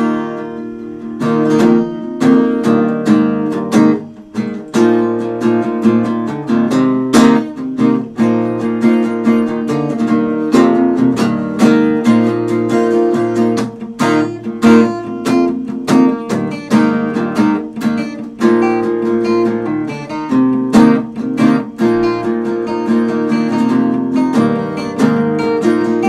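Strummed acoustic guitar music, a steady run of chords.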